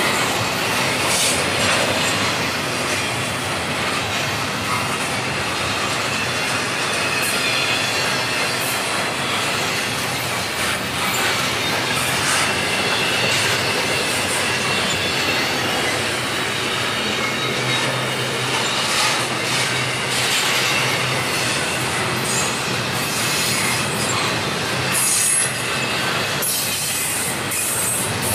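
Double-stack intermodal well cars rolling past, their steel wheels running on the rails with a steady, loud rumble and rattle, and a thin high squeal here and there.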